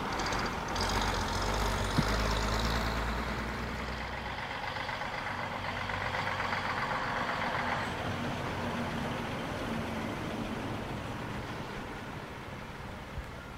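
A preserved bus's engine running with a deep drone, loudest in the first few seconds and then fading away. A single sharp click comes about two seconds in.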